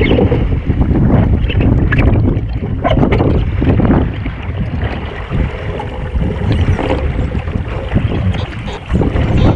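Wind buffeting the microphone of a camera mounted on a Waszp foiling dinghy, with water spray hissing and splashing off the hull. It is loudest in the first few seconds and eases a little after.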